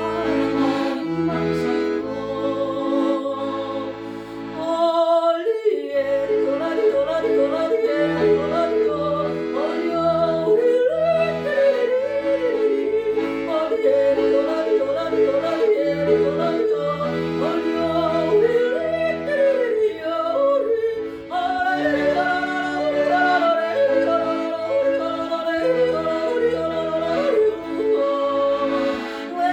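A yodeler singing a yodel song over an instrumental backing track with a steady bass line. The voice flips rapidly between low and high notes. The voice comes in about five seconds in, after a short instrumental passage.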